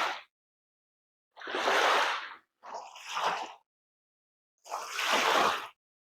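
Short washes of sea-wave noise, each about a second long, with one doubled wash in the middle, and dead silence between them.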